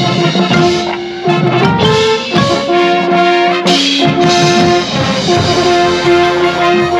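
High school marching band playing, the brass section (trumpets and trombones) carrying held chords, with percussion hits underneath.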